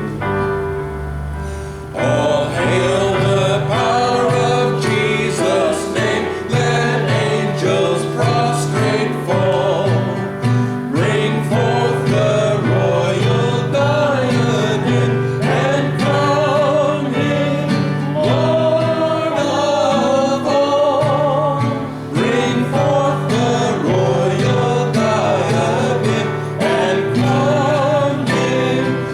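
Gospel hymn sung by voices over instrumental accompaniment, coming in loudly about two seconds in after a short, quieter instrumental lead-in.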